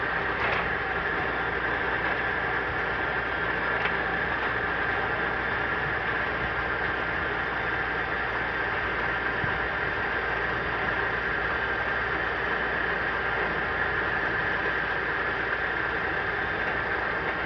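GQ50 rebar cutter running steadily with no cut being made: a constant hum with a high-pitched whine over it.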